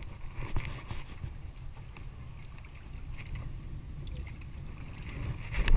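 Wind buffeting the microphone over water slopping against a small wooden fishing boat, with faint knocks and slaps as a catch of fish is handled in the hull. A sudden loud burst of noise comes right at the end.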